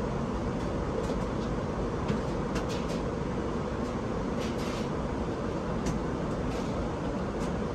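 Steady rushing cabin noise of an Airbus A380 airliner in flight, with several short, light rustles from a paper menu being handled.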